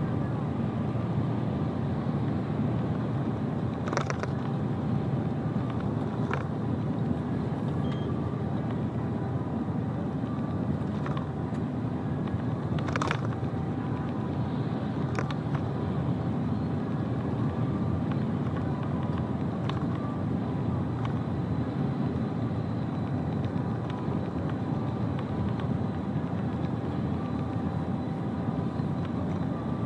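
Heavy truck driving at steady cruising speed: a constant low engine and road rumble with faint steady tones over it. It is broken now and then by short, sharp clicks or knocks, about half a dozen of them.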